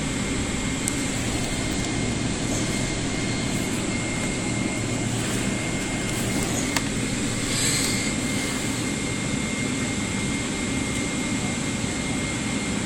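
Steady jet-airliner cabin noise inside a Boeing 777-300: an even roar of engines and airflow with a thin, steady high whine. A brief click and a short rustle come a little past the middle.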